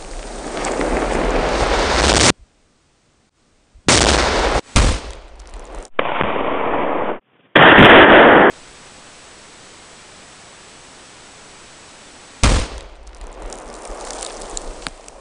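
A run of loud explosion blasts joined by abrupt edits: a swelling blast cut off into dead silence, sharp bangs about four and five seconds in, the loudest bang about eight seconds in, then a steady hiss broken by another sharp bang near the end.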